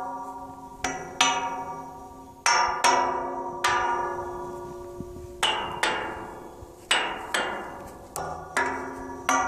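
Metal pipe railing struck with a wooden stick and played as music: about a dozen irregularly spaced hits, each ringing out with a bell-like tone that slowly fades, the pitch changing as different bars are struck.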